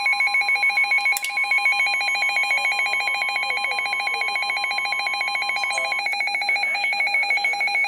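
Emergency alert alarm for a flash flood warning from NOAA Weather Radio: a loud, rapidly pulsing electronic warble with a steady warning tone beneath it. The steady tone cuts off about six seconds in, while the pulsing goes on. A single click comes about a second in.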